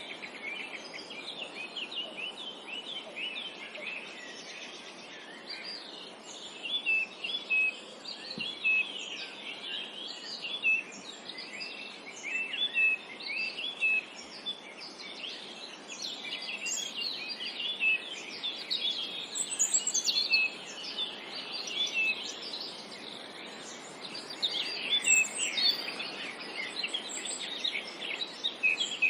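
Many songbirds chirping and singing together in a forest, short high chirps and trills overlapping over a steady background hiss, in busier spells with quieter gaps.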